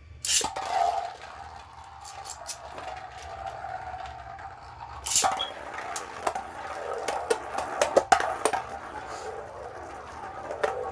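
Beyblade spinning tops launched into a stadium with a sharp clack about a third of a second in, then spinning with a steady whir. Repeated plastic clicks and clacks come as they collide, with the hardest hits around five seconds and around eight seconds in.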